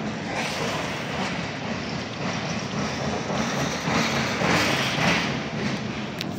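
CN freight train's cars rolling past underneath, a steady rumble and rush of wheels on rail that swells about four to five seconds in.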